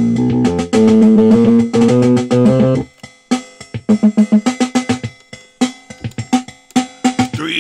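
Instrumental rap beat with plucked guitar and bass over drums. Held chords for about the first three seconds give way to sparser, short plucked notes and drum hits.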